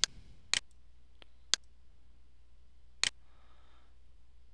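Computer mouse button clicking: five short, sharp clicks spaced irregularly, one of them faint, over a low steady hum.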